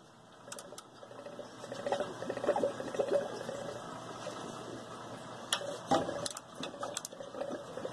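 An 11 mm wrench working the bolts on a hot-water heating circulator pump: scattered metal clicks and scraping as the tool is fitted and turned.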